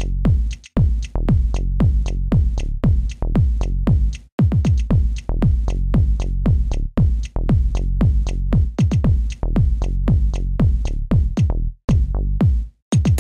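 Background electronic music with a fast, steady beat that drops out briefly a few times.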